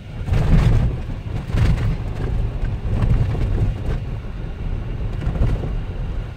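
Jeep Wrangler JK driving through snow: a loud, steady low rumble with several harder surges and thuds.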